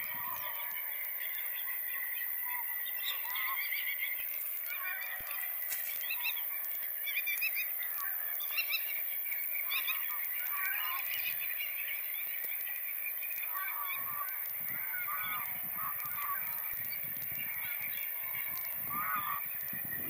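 A flock of geese honking, with many calls overlapping continuously.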